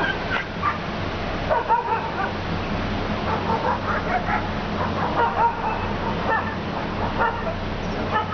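Dogs barking and yelping in short, repeated, overlapping calls, over a steady low hum.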